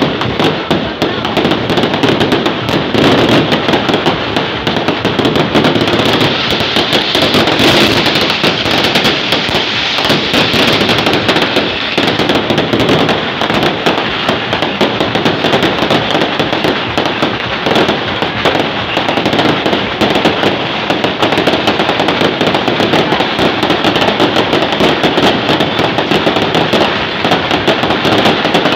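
Firecrackers and aerial fireworks going off nonstop, a loud, dense crackle of rapid bangs with no pause.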